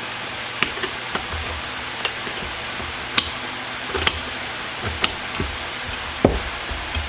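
Metal clinks and knocks from a bench vise being taken apart: about nine sharp, irregular taps over a steady hiss, with a duller thud near the end.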